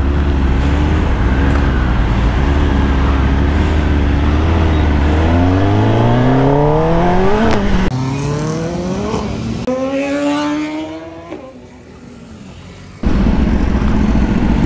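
Motorcycle engine running at a steady pitch, then accelerating hard through the gears: the pitch climbs three times and drops at each gear change. The sound then fades for a couple of seconds and comes back abruptly at a steady pitch near the end.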